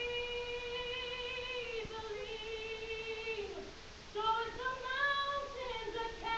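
A young female voice singing solo into a microphone: one long held note, then a new phrase starting about four seconds in.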